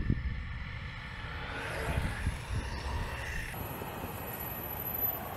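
Electric skateboard on Boundmotor hub motors with urethane-sleeved wheels rolling fast over asphalt: a steady rumble of wheels on the road mixed with wind rushing over the microphone.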